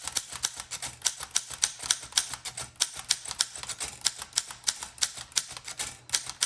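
1914 Corona 3 folding typewriter being typed on steadily: a quick, even run of typebars striking the platen, about six keystrokes a second.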